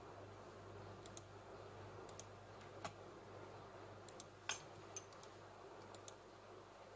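Computer mouse clicking: about a dozen sharp clicks, several in quick pairs like double-clicks, the loudest a little past the middle, over a faint steady hum.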